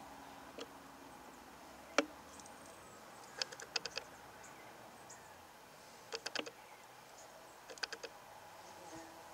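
Faint steady hum of Australian native stingless bees flying about the entrance of their log hive. The loudest sounds are sharp clicks: a single one about two seconds in, then three quick clusters of four or five clicks each.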